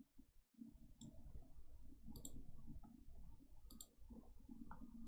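Faint computer mouse clicks, a few single clicks and quick pairs, over a low steady hum.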